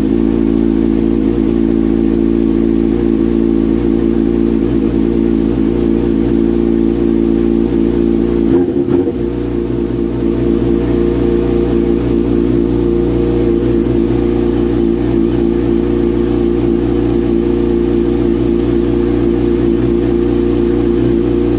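Yamaha R6's inline-four engine running at a steady idle just after a start, with a short break in the even note about eight and a half seconds in.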